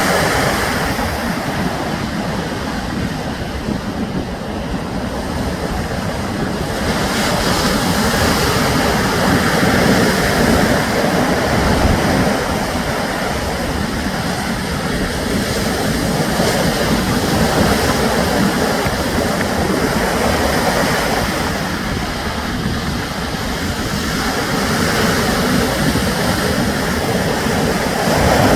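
Sea surf washing onto the shore as a steady rush of noise, swelling and easing every several seconds as the waves come in.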